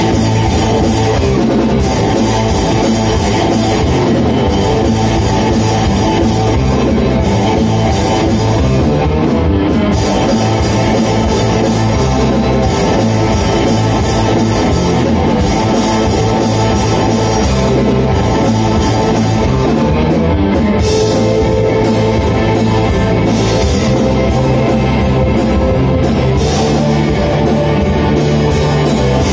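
Rock band playing live: electric guitars, bass guitar and a drum kit.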